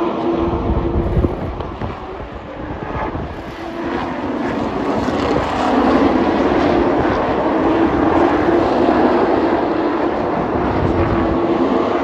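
Engines of a pack of race trucks running at racing speed around the oval. The drone eases off about two seconds in and builds again as the field comes back around.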